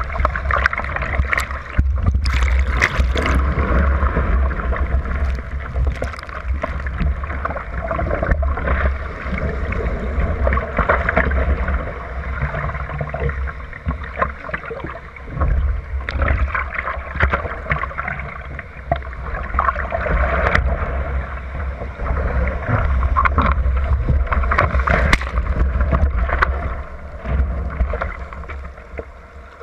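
Water rushing and splashing against the hull of a surfski paddled through breaking surf, heard from a camera on its bow, with a steady low wind rumble on the microphone and sharp splashes throughout.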